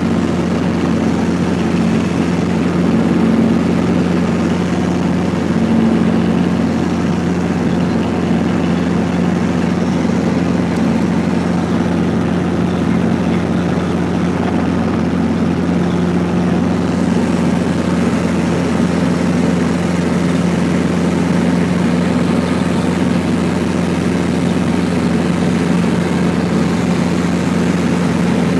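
Steady helicopter noise heard from inside the cabin in flight: the unbroken drone of the rotor and engine, with a strong low hum.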